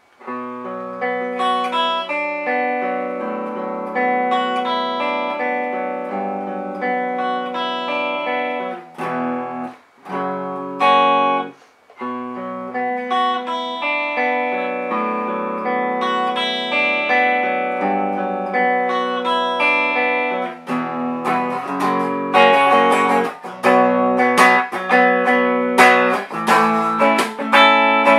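Electric guitar on its bridge pickup, played through a small single-ended 12AX7/12AU7 tube amplifier into a Celestion 12-inch Greenback speaker. Picked chords and single notes ring out, with two short breaks near the middle, then change to faster strummed chords about two-thirds of the way through.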